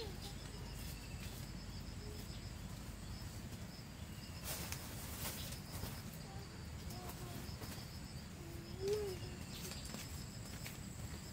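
Outdoor rural ambience: a faint, steady pulsing insect trill with a few short animal or bird calls, the clearest about nine seconds in. A few sharp knocks come around the middle.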